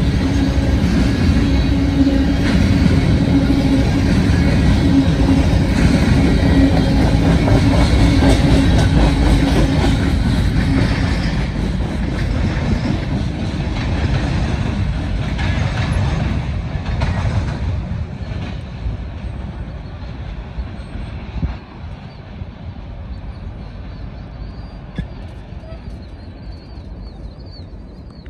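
Freight train rolling across flange-bearing frog railroad diamonds, its wheels clattering over the crossing. Loud at first, then fading away from about two-thirds of the way through as the train passes and moves off.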